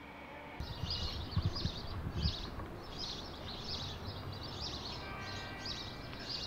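Outdoor ambience: small birds chirping again and again, about two chirps a second, over steady background noise, with a low rumble in the first couple of seconds.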